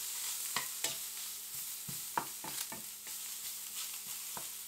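Sliced shallot and shiitake and wood ear mushrooms sizzling in hot oil in a pan, a steady hiss, with irregular clicks of a utensil stirring against the pan.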